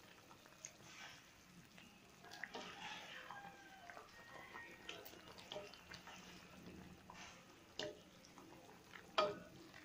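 Broth with sliced sponge gourd simmering in a pan and stirred with a spatula: faint sloshing and bubbling of liquid, with scattered small clicks and a sharp knock of the spatula on the pan near the end.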